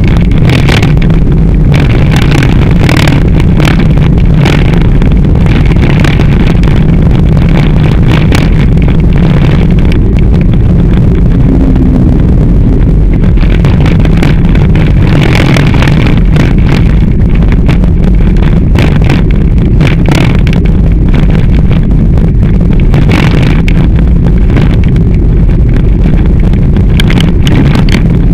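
Heavy, constant low rumble of wind and road vibration on a handlebar-mounted camera's microphone as a mountain bike is ridden, with frequent sharp rattling knocks from the uncushioned camera mount jolting over bumps in the trail.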